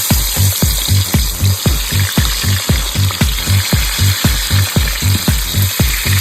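Background music with a steady low beat, about three and a half beats a second, over a steady hiss.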